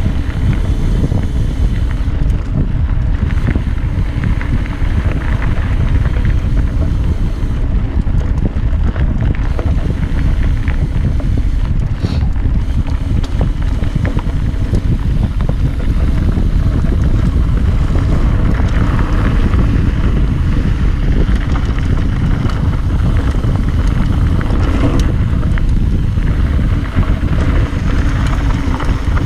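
Wind buffeting the camera's microphone over the rumble of a Yeti SB66 mountain bike's tyres rolling fast down a dirt trail, with scattered small clicks and rattles from the bike.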